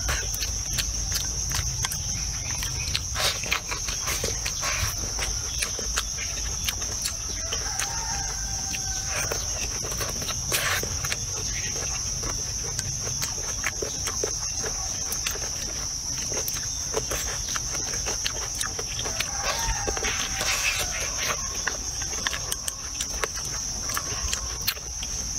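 Steady, high-pitched drone of insects chirring outdoors, with close chewing sounds and chopsticks clicking against a bowl. A few brief calls from a bird or hen come through now and then.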